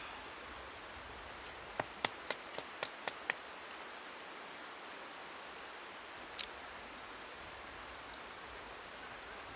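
Steady hiss of running river water, broken by a quick run of about seven sharp snaps or clicks in under two seconds and one more sharp click a few seconds later.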